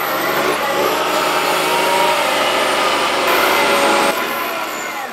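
Caterpillar 938 wheel loader's diesel engine running under work, its pitch rising and falling as it revs. About four seconds in the low rumble stops abruptly, leaving a quieter, thinner sound.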